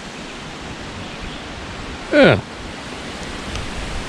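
Steady rush of wind on the microphone, even and unbroken, with a single spoken "yeah" about halfway through.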